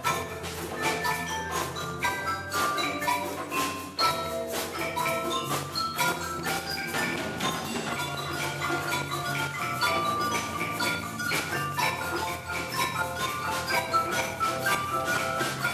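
Percussion orchestra playing: marimbas and other mallet keyboards carry a busy melody over a drum kit and hand drums keeping a steady beat.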